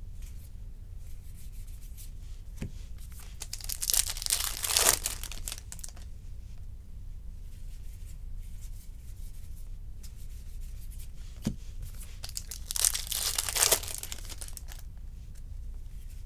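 Baseball trading cards rustling and scraping against each other as a stack is flipped through by hand, in two bursts of a second or two each, about four seconds in and again near the end. A steady low hum runs underneath.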